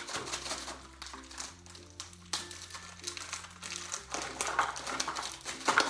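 Plastic Oreo biscuit packets crinkling in irregular crackles as they are handled and emptied into a bowl, with background music playing underneath.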